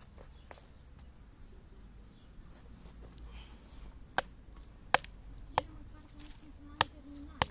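A wooden stake beside a young tamarillo being knocked into the soil: after about four seconds of quiet, five sharp knocks at irregular intervals of roughly a second.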